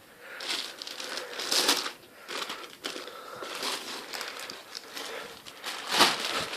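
Packaging wrap being crinkled, crushed and pulled at as it is worked off a new Penny skateboard. It comes in irregular crackling handfuls, loudest about a second and a half in and again near the end.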